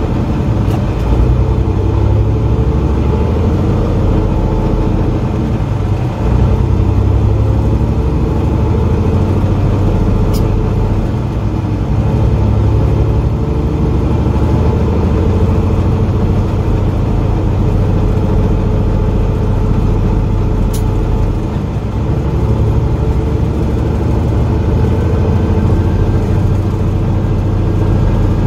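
Semi truck's diesel engine running steadily while driving, heard from inside the cab: a continuous low drone with road noise, easing briefly twice.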